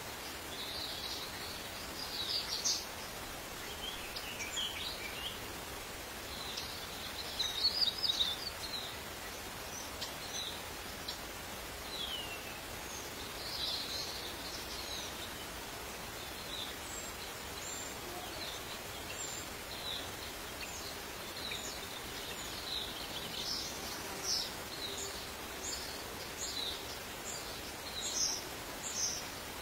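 Short high-pitched chirps and squeaks from a small animal, some sweeping downward, scattered irregularly over a steady outdoor hiss. The calls come loudest in a cluster about eight seconds in and again near the end.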